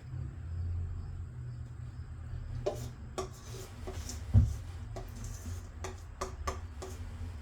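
Kitchen utensil clinking and scraping against a mixing bowl and muffin pan while batter is portioned into muffin cups: a run of light clicks starting a few seconds in, with one dull thump about halfway.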